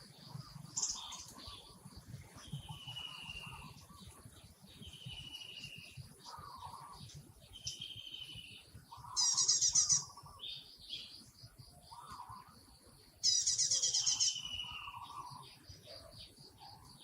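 Forest birds calling: a short falling whistle repeats about every two seconds, with two louder, rapid high chirping trills, one about nine seconds in and one about thirteen seconds in.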